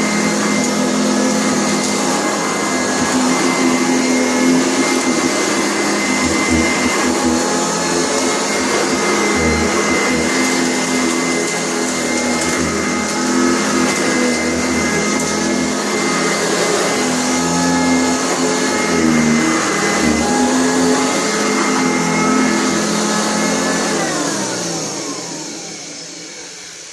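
Upright vacuum cleaner running steadily with a motor whine, then switched off near the end, its motor spinning down with a falling pitch.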